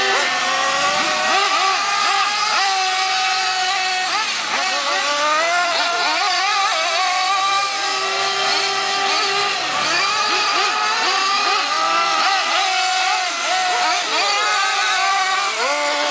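Several radio-controlled model cars' small engines racing at once, each one's pitch rising and falling as it accelerates and lets off, in overlapping high-pitched whines.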